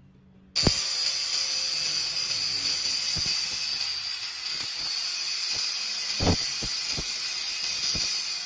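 Angle grinder with a thin abrasive cut-off disc cutting through a steel rod held in a vise: a loud, steady, hissing grind that starts suddenly about half a second in, with a few sharp ticks through it.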